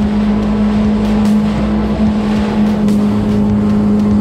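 Jet ski engine running steadily at speed, a constant drone over the rush of water spraying off the hull.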